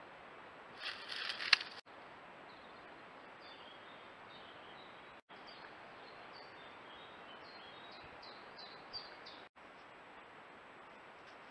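Small birds chirping in short high notes over a steady hiss, with a brief noisy rustle ending in a sharp click about a second in.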